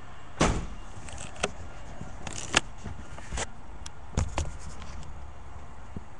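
A handful of short, sharp knocks and clunks over a steady low hum, the loudest about half a second in and another about two and a half seconds in, with a quick pair a little after four seconds.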